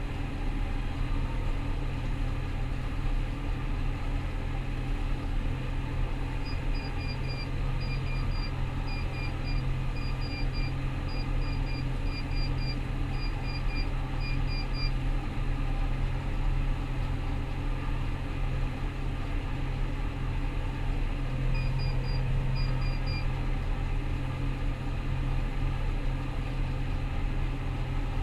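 Rostselmash Vector 425 combine harvester running steadily with a constant low drone. Repeated short double beeps from an electronic beeper sound over it from about six seconds in to fifteen seconds, and again briefly around twenty-two seconds.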